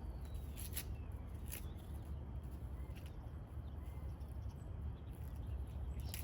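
Corn husks crackling as ears of corn are handled: a few short dry crackles in the first couple of seconds and another near the end. Under them runs a steady low hum, with faint bird chirps.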